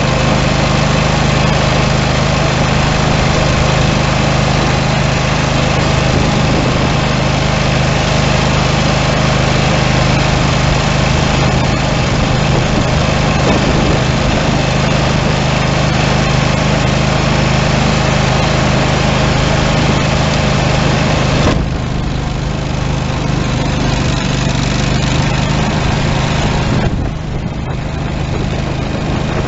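Simplicity garden tractor engine running steadily at working throttle, powering a front-mounted single-stage snowblower as it clears snow. The sound eases a little about two-thirds of the way through and again near the end.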